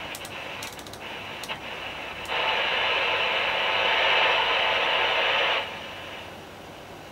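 Static hiss from a Realistic (Tandy) CB radio's speaker, with several clicks of its knobs being turned in the first two seconds. About two seconds in the static jumps much louder for about three seconds, then drops back to a lower hiss.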